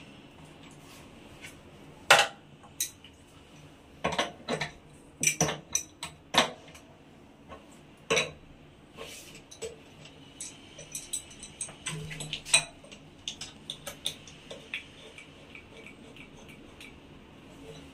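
Metal clinks and knocks of braided stainless-steel flexible water hoses and their threaded fittings being handled and hand-tightened onto a water heater's pipe connections and a wall tap. Irregular sharp knocks come in the first half, then a run of lighter ticks.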